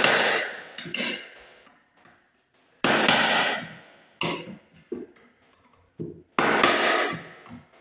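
Hammer striking a screwdriver to knock out the break-out tabs of a plastic wire-mold electrical box: about five sharp blows, each ringing briefly, with a few lighter taps between.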